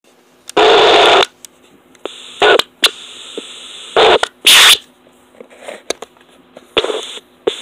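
Harsh, distorted bursts of noise that start and stop abruptly at irregular moments, the longest about two-thirds of a second, with sharp clicks between them. A faint steady hum runs underneath.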